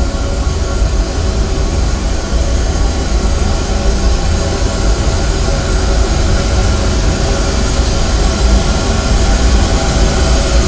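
Steady, loud low rumble with a droning hum and hiss over it, growing slightly louder toward the end.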